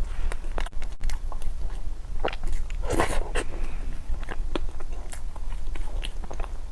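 Close-up eating sounds: mouth clicks and smacks of chewing and biting, with a louder bite about three seconds in.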